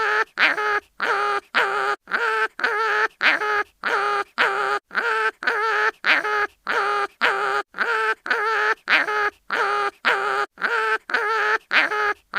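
Cartoon animal crying-in-pain sound effect: short, pitched wailing cries with a wavering pitch, repeated in a steady loop about twice a second.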